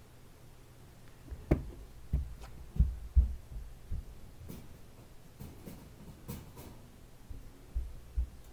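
Irregular soft, low thumps and knocks, about half a dozen, bunched in the first half and again near the end, with a few faint clicks between.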